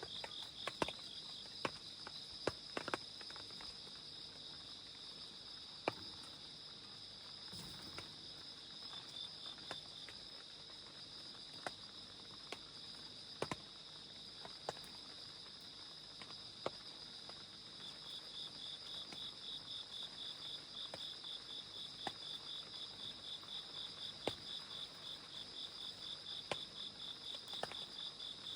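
Crickets and other night insects chirping: one steady high trill throughout, joined by a fast pulsing chirp at the start and again from about two-thirds of the way in. Scattered raindrops tap sharply now and then.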